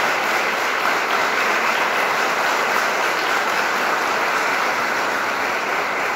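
Audience applauding steadily, the clapping slowly tapering near the end.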